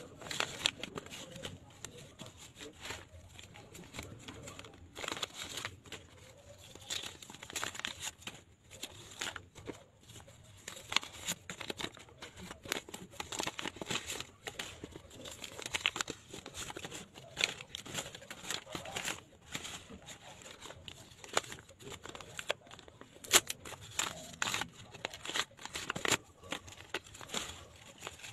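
Paper envelopes being torn open and crinkled by hand, with banknotes rustling as they are pulled out: irregular crackles and rustles throughout.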